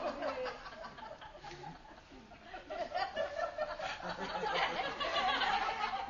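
Studio audience laughing, dipping early on and swelling louder through the second half.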